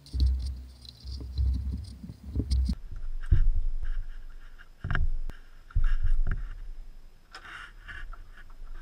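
Hand tools working the bolts of a car's water pump pulley: irregular knocks, clicks and scraping of metal on metal, with low handling thuds in the first few seconds.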